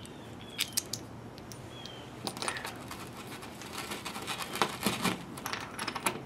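Light clicks and rattles of a metal spring-wing toggle bolt with its washer and nut being handled, and the folded toggle being pushed through a hole in drywall.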